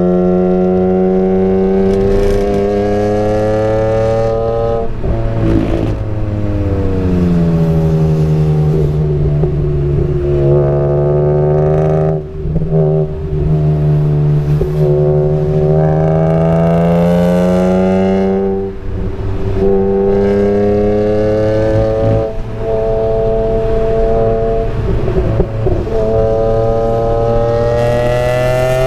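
BMW E46 M3's S54 straight-six heard from inside the cabin on track, its pitch climbing under acceleration and falling off several times as the driver lifts, brakes and changes gear for corners, with brief dips in loudness at the lifts.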